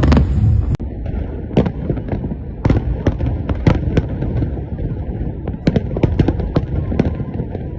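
New Year fireworks going off: a dozen or so sharp bangs at irregular intervals over a continuous low rumble of more distant bursts.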